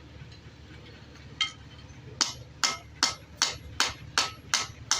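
Hammer striking metal: a single blow, then a steady run of blows about two and a half a second, each with a short ring.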